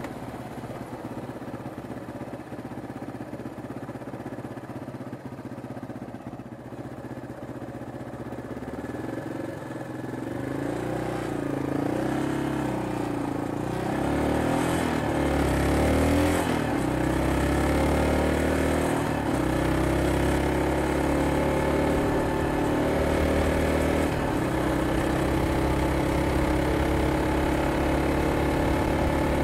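Yamaha XT225 Serow's 223 cc air-cooled single-cylinder four-stroke engine, heard from on the bike. It runs low and quiet for about the first ten seconds, then gets louder as the bike pulls away, its note climbing and dropping through the gears, and settles into a steady cruise for the rest.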